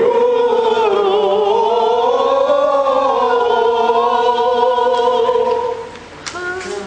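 Choir singing an Armenian liturgical hymn in long held notes, the pitch drifting slowly up and back down; the singing fades out about six seconds in.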